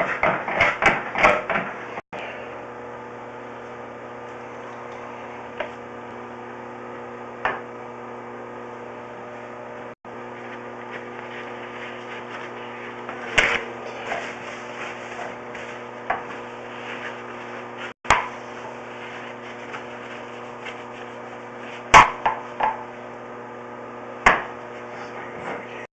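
Sewer inspection camera being fed through a drain line: a steady hum, with sharp knocks and clicks every few seconds as the camera head and push cable strike the pipe.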